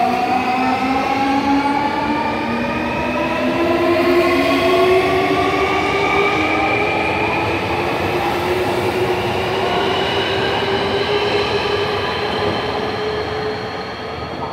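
Nankai electric commuter train pulling away from the platform and gathering speed. Its traction motors whine in several tones that climb steadily in pitch over the rumble of the wheels on the rails, and the sound fades toward the end as the train leaves.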